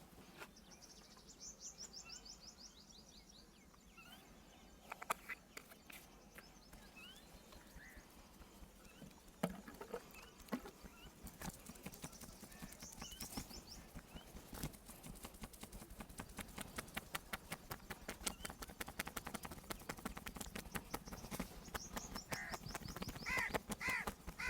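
Quick light slaps and taps of a hand-percussion massage, several a second, starting about halfway through and growing louder toward the end. Birds sing short trills in the background.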